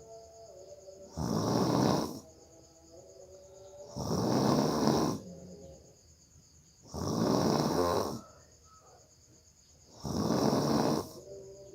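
A person snoring hard: four loud snores about three seconds apart, each lasting about a second.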